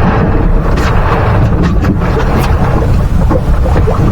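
Loud, steady low rumble of wind buffeting the microphone on an offshore boat, with a few short sharp knocks scattered through it.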